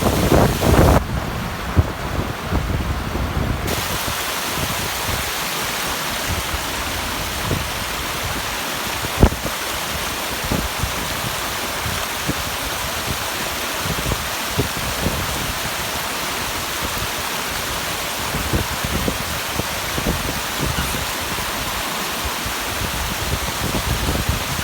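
Water rushing down a small waterfall: a steady hiss, with a few faint knocks and one sharp click about nine seconds in.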